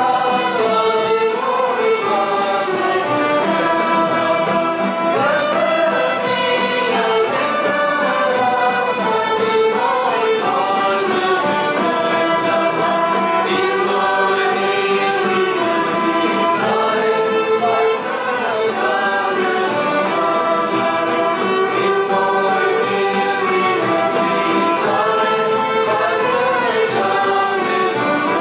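Ensemble music with a choir of singing voices over violins and other acoustic instruments.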